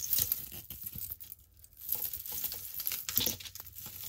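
Costume jewelry being handled and sorted by hand: metal chains and beads clinking and jingling in irregular light clicks, with a short lull partway through.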